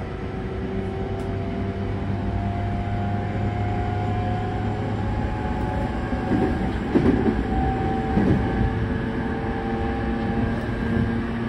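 JR E231-0 series electric train heard from inside motor car MoHa E230-18: the traction motors and inverter whine in several steady tones that climb slowly as the train gains speed, over the rumble of wheels on rail. A few louder clattering knocks from the wheels over the track come about six to eight seconds in.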